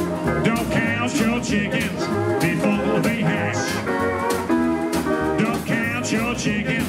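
Live rockabilly band playing an instrumental break on piano, drum kit and pedal steel guitar over a steady beat.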